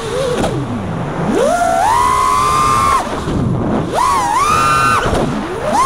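Brushless motors and propellers of a 5-inch FPV freestyle quadcopter whining as the throttle is punched and chopped. The pitch climbs and holds, then drops sharply, twice, and climbs again near the end.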